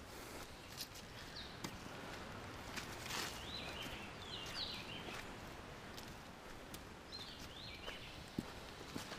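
Footsteps on dry leaf litter along a forest trail, scattered light clicks and rustles, with a bird giving short up-and-down chirping calls about three seconds in, again near five seconds and again around seven seconds.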